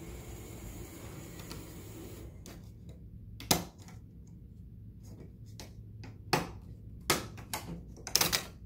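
Sharp plastic clicks and snaps as fingers pry at the snap-on cover plate of a wall-mounted control keypad. There is one click about three and a half seconds in, then a cluster of several in the last two and a half seconds. A steady hiss cuts off about two and a half seconds in.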